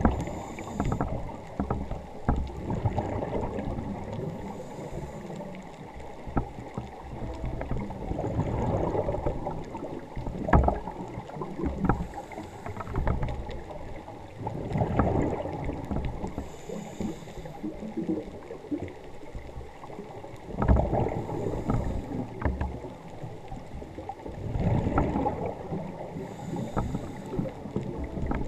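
Scuba diver breathing through a regulator underwater: a faint hiss of inhaling every five seconds or so, alternating with louder rumbling bursts of exhaled bubbles.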